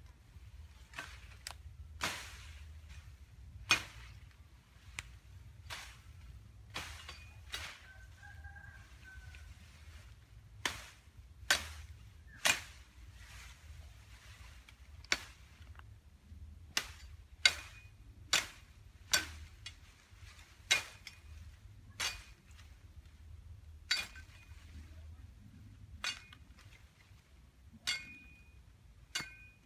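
Machete chopping through bamboo and brush stems: a run of sharp, irregular chops, roughly one a second, some with a short metallic ring from the blade.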